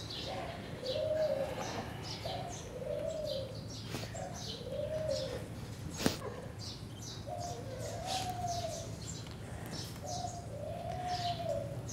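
Doves cooing in a repeated series of short, low, arching coos, with small birds chirping high above them. A single sharp click about halfway through.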